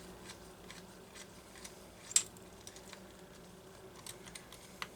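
Light metallic clicks and taps of hand tools and small engine parts being handled while a chainsaw's connecting rod is taken off the crankshaft, with one sharper click about two seconds in and a few more near the end.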